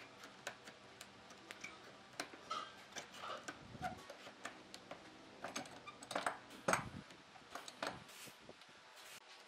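Irregular light clicks and knocks of thin wooden laminations being handled and pressed against a plywood bending form, with a few louder knocks about six to seven seconds in as a metal C-clamp is set over the bundle.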